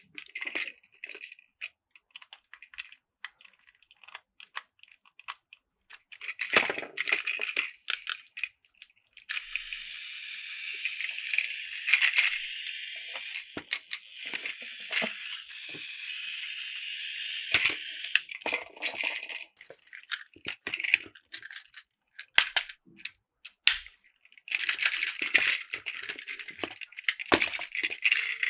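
Plastic toy trains clicking and rattling as they are handled and coupled together. About nine seconds in, a toy train's small battery motor starts whirring steadily and runs for about eight seconds, then cuts off. Busier clicking and rattling, with more whirring, starts again near the end.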